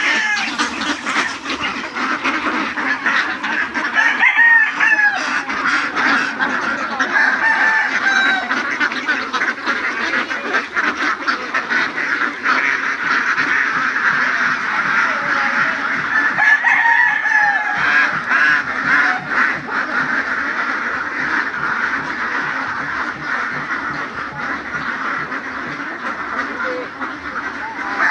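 A large flock of domestic ducks quacking continuously: a dense, steady chatter of many overlapping calls.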